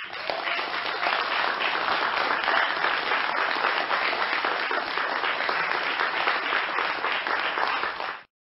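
Applause from many people clapping, steady throughout, cutting off suddenly about eight seconds in.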